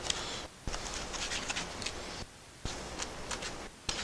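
Small chisel prying and scraping leftover Kaizen foam out of a routed cutout: scattered light scratches and ticks as the foam tears away, with a few brief pauses.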